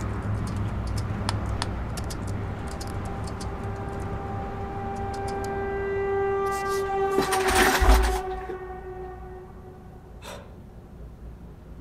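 A horn-like drone with several overtones swells over about eight seconds to a loud burst of noise and a low boom, then fades away. Light keyboard-typing clicks run through the first half.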